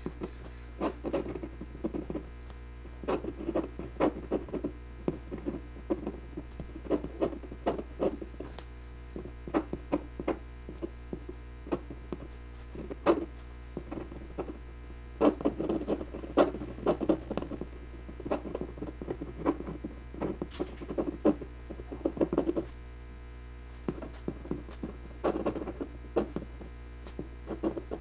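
Steel fountain-pen nib scratching and tapping on Bristol paper in quick runs of short strokes, with short pauses between figures and a longer pause of about two seconds near the end. A steady low hum runs underneath.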